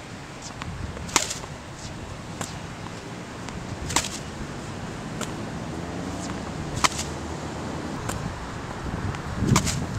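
Tennis balls struck by a racket that has a bag over its strings: three sharp hits about three seconds apart, with fainter pops between them.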